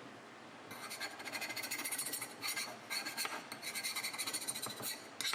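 Rapid, irregular scratching strokes of hand abrasive work on a steel knife blade, starting about a second in after a faint steady hiss.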